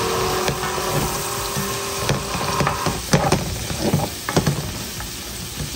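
Chicken and smoked sausage sizzling in a frying pan, with a utensil knocking and scraping against the pan as the food is stirred, the knocks bunched in the middle; the sizzle eases a little near the end.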